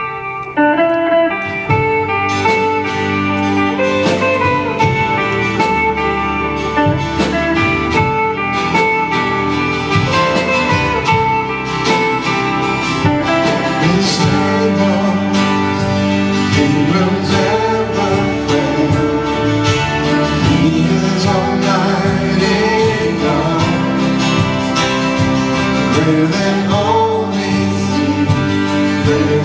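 Live worship music: a band with electric guitar and a steady beat, with a singer.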